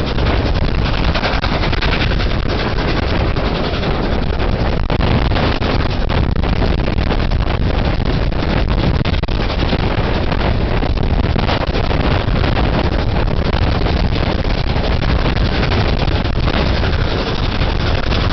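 Heavy wind buffeting on the microphone at an open carriage window, over the running of a train hauled by A1 Pacific steam locomotive 60163 Tornado as it accelerates. The noise is loud and unbroken, with many small irregular knocks through it.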